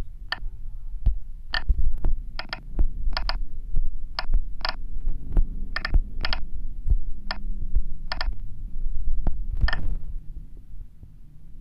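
On-screen keypad clicks from a CNC simulator app as G-code is typed on a phone: about a dozen short, sharp, irregular clicks over dull low knocks of fingertip taps and a steady low hum.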